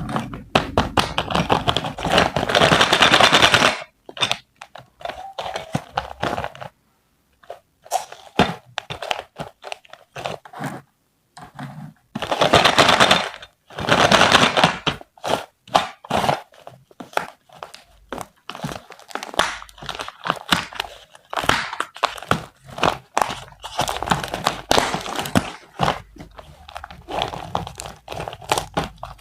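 Dense crunching, clicking and crinkling from a toy kitchen set and its packaging being handled by hand, in stretches broken by short pauses.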